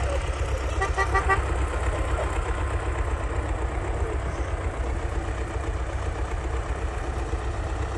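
Tractor and truck engines running with a steady low rumble, with a short stuttering horn toot about a second in.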